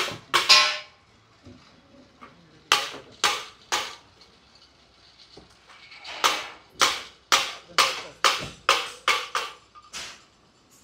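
Hammer blows in short runs of quick, sharp knocks: a few strikes about half a second apart, a pause, then a faster run of about nine blows roughly two to three a second.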